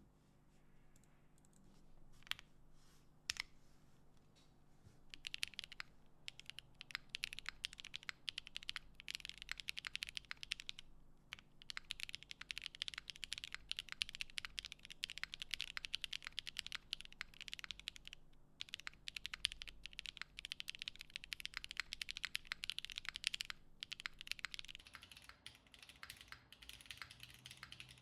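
Typing on a Cycle7 mechanical keyboard with stock Kailh Box Taro switches, GMK keycaps and no case foam. A few single keystrokes come first, then fast continuous typing, with two short pauses.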